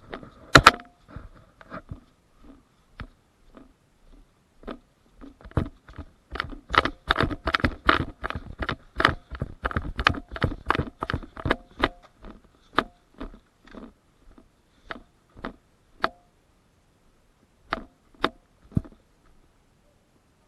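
Airsoft pistols firing: scattered sharp cracks that come fast and overlap from about six to twelve seconds in, then single shots further apart. Some shots end in a short ring.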